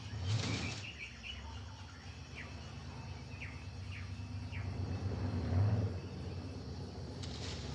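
A speedboat's engine idling low and steady, swelling briefly about five and a half seconds in, with birds chirping over it in a few quick falling calls. Near the start comes a brief swish of leaves as the hull pushes through palm fronds.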